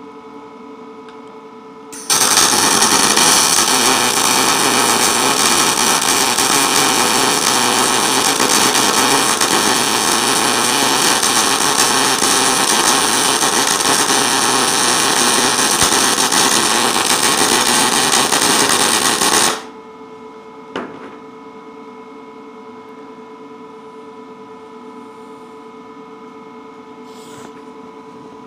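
MIG welding arc from a Lincoln 210 MP, running .035 wire with C25 shielding gas at a setting for 1/4-inch steel, crackling steadily for about seventeen seconds. It starts about two seconds in and cuts off suddenly. A steady hum is heard before and after the weld.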